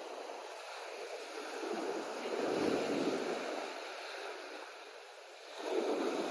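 Sea surf: waves rolling in and breaking on the shore, one swell about two and a half seconds in and another near the end.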